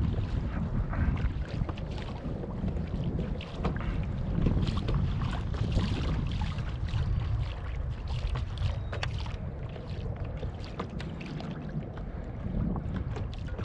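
Strong wind buffeting the camera microphone in a continuous low rumble, with frequent short splashes and slaps of choppy water against a small boat's hull.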